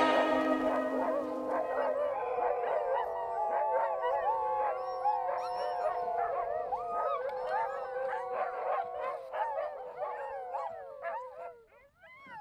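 A pack of sled dogs howling together, many long overlapping howls at different pitches, fading out near the end.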